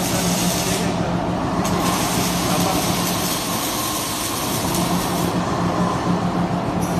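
Automatic box-beam end-clip welding machine running: a steady electrical hum under a dense hiss, with the upper part of the hiss dropping away twice, briefly about a second in and for longer about five seconds in.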